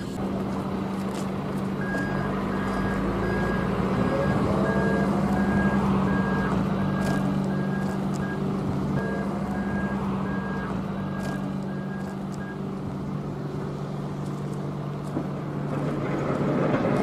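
A vehicle's backup alarm beeping steadily over a running diesel engine. The beeps stop about two-thirds of the way through, and the engine hum drops in pitch a little later.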